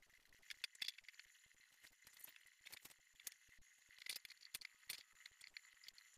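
Faint, irregular clicking and rattling of clamps and stand fittings being handled and tightened by hand, a few sharper ticks among them.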